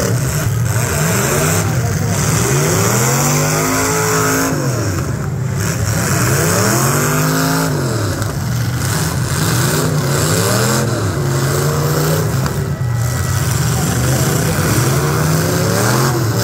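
Demolition derby cars' engines revving hard again and again, the pitch climbing and dropping every second or two as the cars spin on the dirt track, over a constant hiss.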